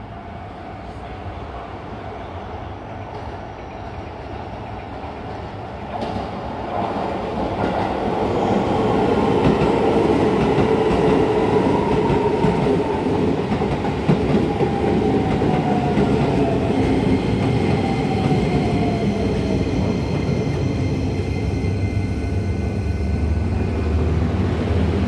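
Keisei 3000-series electric train pulling into the station and braking to a stop. Wheel noise on the rails swells about six seconds in as it arrives, and a whine falls steadily in pitch as it slows. Steady high tones hold in the later part as it comes to a halt.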